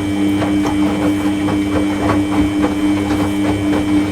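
Washing machine running: a steady hum with a quick, even rhythm of short knocks, about three a second.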